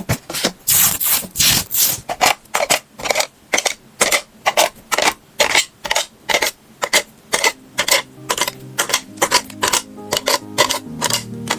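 Drawing tool scratching across paper in quick, repeated strokes, about two to three a second. Quiet music comes in underneath from about eight seconds in.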